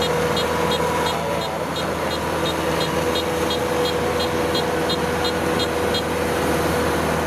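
Rice combine harvester running steadily at working speed while it cuts, with a steady engine drone and a faint regular ticking about three times a second that stops near the end.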